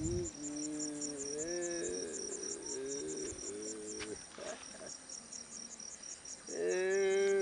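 Crickets chirping in a steady, high, evenly pulsed rhythm. A person's voice makes a few drawn-out, wavering sounds over it, the loudest near the end.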